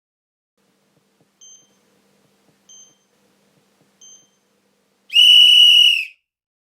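Hitachi elevator's electronic signal tones: three short, soft high beeps about 1.3 seconds apart, then one loud, high beep lasting about a second.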